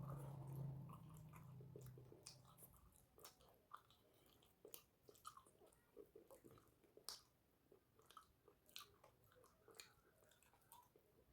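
Close-up chewing and mouth sounds of a person eating a rice meal: irregular wet smacks and small crunches. A low hum sits under the first couple of seconds.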